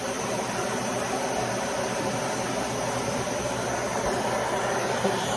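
Dyson Ball Multifloor 2 upright vacuum cleaner running steadily: an even rush of suction noise with a faint high steady tone.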